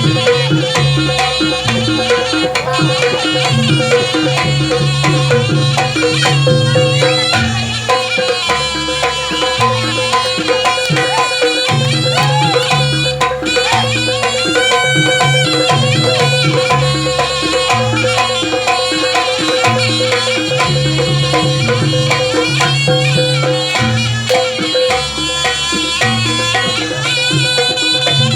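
Javanese barongan accompaniment music: a wavering reed-pipe melody over hand drums and a steady held tone, played continuously.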